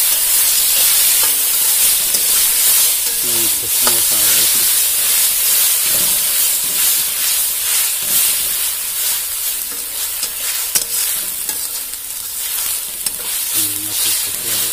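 Browned onions and ginger-garlic paste sizzling in hot oil in an aluminium kadai, while a steel spoon stirs them with repeated scrapes and taps against the pan.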